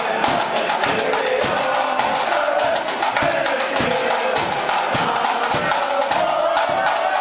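Marching flute band playing a tune: massed flutes carry the melody over a bass drum and fast, dense drumming.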